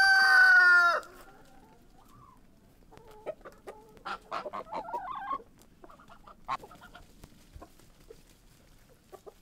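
Rooster crowing, the long call ending with a falling tail about a second in. After it, hens cluck softly in short broken calls.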